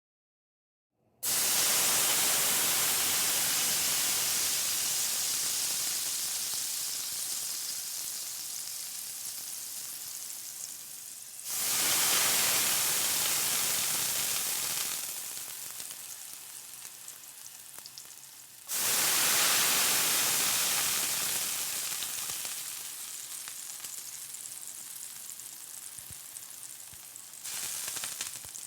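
Water hitting a hot pan and sizzling hard, then slowly dying down. Fresh sizzling flares up again twice more, and a weaker time near the end.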